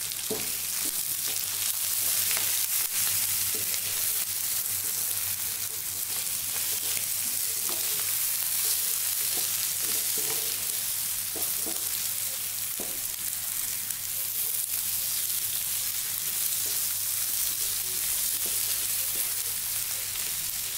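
Marinated chicken pieces sizzling steadily in hot coconut oil on high flame, stirred and turned with a wooden spatula in a non-stick pan, with scattered light knocks and scrapes of the spatula.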